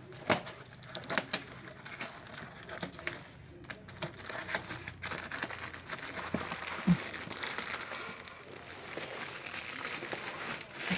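Cardboard parcel being torn open by hand and a plastic-wrapped chrome towel rod slid out: scattered cardboard clicks and scrapes, then a steadier stretch of crinkling and tearing from about four seconds in, with one sharp knock about seven seconds in.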